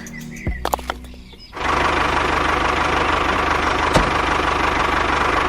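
Background music with clicks for the first second and a half. Then a small motor, likely the mini truck's, starts abruptly and runs steadily with a buzzing rattle and a whine, with one sharp click about four seconds in.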